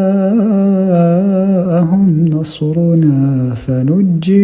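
A man's voice reciting the Quran unaccompanied in a slow, melodic tajweed style, drawing words out into long, wavering, ornamented notes, with a short break about three and a half seconds in.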